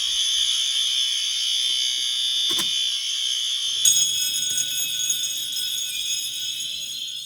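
Fire alarms sounding together in a steady, high-pitched blare. About four seconds in, another alarm joins and adds further tones.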